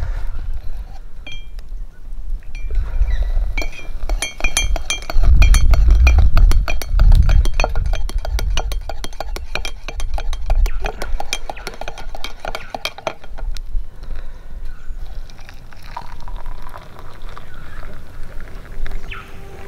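Metal utensils clinking rapidly against metal cookware, many quick ringing strikes that come thickest through the middle, over a low rumble.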